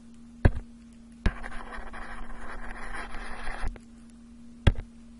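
Digital pen stylus tapping and scratching on a tablet during handwriting: four sharp taps, with about two seconds of scratchy rubbing after the second tap, over a steady low hum.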